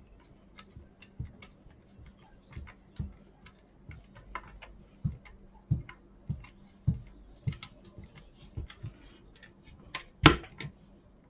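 Hand screwdriver driving screws back into a power blower's plastic housing: a run of light clicks and small knocks about every half second to second, with one louder knock about ten seconds in.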